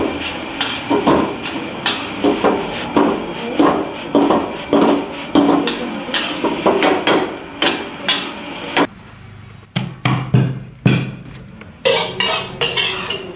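Metal ladle scraping and clanging against a wok as fried rice is stir-fried over a gas flame, with a steady sizzling hiss and about two strikes a second. The sizzling and clanging stop after about nine seconds, leaving a few separate knocks.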